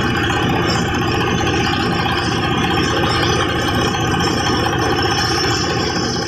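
Multipurpose chopper-shredder machine running steadily, its motor and cutter drum making a continuous loud drone with a fast rattle.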